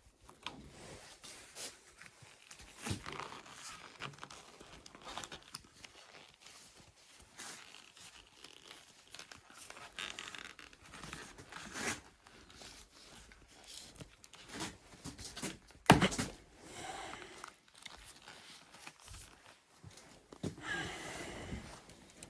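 Hand work on an old axe in a small garage: irregular scraping, crinkling and tearing noises with scattered clicks, and one sharp knock about two-thirds of the way through.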